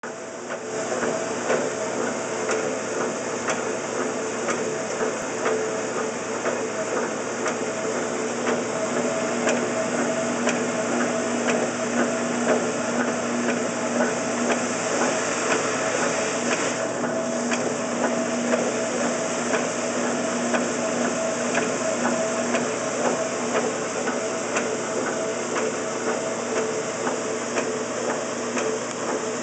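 1969 Wards by Norge Touch n' Wash washing machine's electric motor, V-belt and transmission running during the wash cycle: a steady mechanical whir with a few held hum tones and light rapid clicking.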